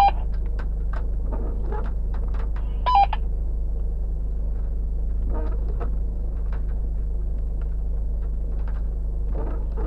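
A vehicle engine idles with a steady low hum. Short electronic two-tone beeps, a higher note dropping to a lower one, sound right at the start and again about three seconds in.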